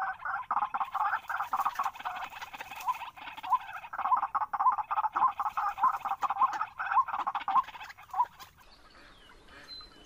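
White-breasted waterhen calling: a fast, harsh run of repeated croaking notes with short squeaky rises among them, stopping about eight seconds in.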